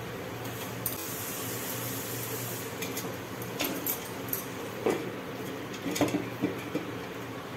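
Wooden spatula knocking and scraping in an unglazed clay cooking pot, and the clay lid set down on it: a few scattered knocks over a steady low hum.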